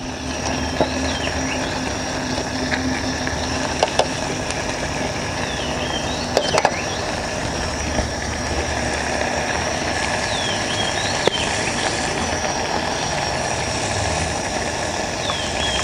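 Green curry left to boil in a pot on a portable butane gas stove: a steady hiss and low rumble with a few small clicks. Faint bird chirps and a thin, high, steady insect whine sit over it.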